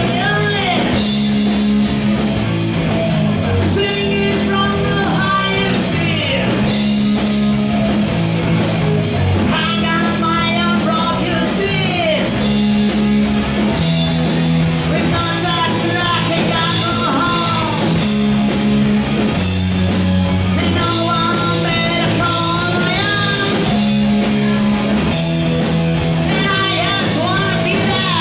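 Metal band playing live: electric guitars and drums, with a vocalist singing into a microphone in phrases every few seconds.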